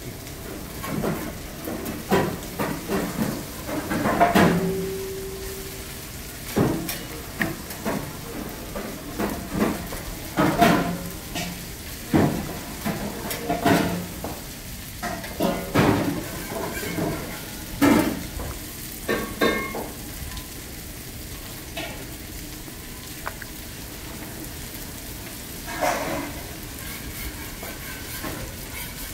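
Floured pollack fillets being dipped and turned by hand in a steel bowl of beaten egg. The sound is wet squelching and slapping that comes in irregular bursts.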